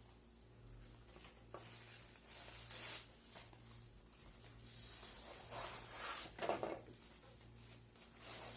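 Crinkling and rustling of a torn-open lithium pouch cell's rolled foil and separator layers being pulled apart by hand, in several uneven bursts.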